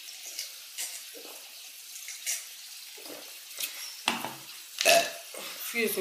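Steady trickle of running water from a turtle aquarium, with a few short, louder noises toward the end, the loudest about five seconds in.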